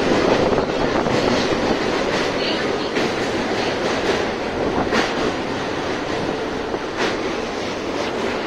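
Electric multiple-unit (EMU) local train running, heard from inside a passenger coach: a steady rumble with sharp clacks of the wheels over rail joints every second or two.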